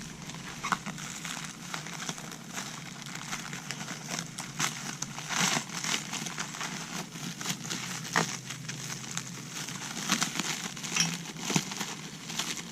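Plastic shrink wrap crinkling and crackling as it is pulled and torn off with hand tools, with many short sharp clicks scattered through it.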